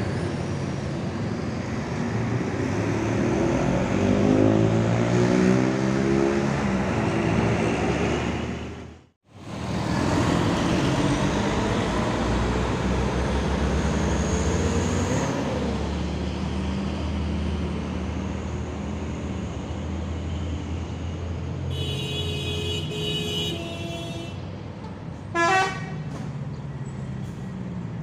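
Large intercity coaches' diesel engines and exhausts running as they pull away through traffic, with the engine note rising as one accelerates. Near the end a horn sounds for about two seconds, followed by a short, loud rising toot.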